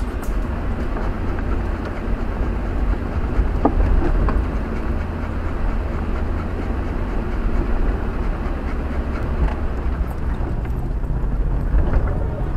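Jeep Wrangler crawling at walking pace over rock and dirt: a steady low engine and drivetrain rumble mixed with the noise of tyres and the body jolting on the rough trail.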